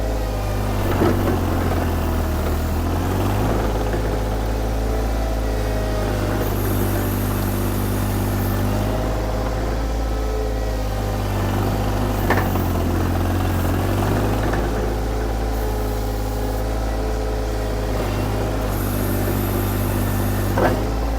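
VMENG 580T Pro mini skid steer's engine running steadily while its hydraulics work, the pitch shifting slightly a few times under load, with three short knocks about a second in, about twelve seconds in and near the end. With the 20cc (12 GPM) gear pump fitted it bogs down less, which the owner hears as way better.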